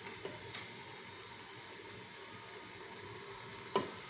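Meat and spices frying gently in oil in a pot, a faint steady sizzle, with a few light clicks and one sharper tap near the end as chopped cilantro and parsley are added.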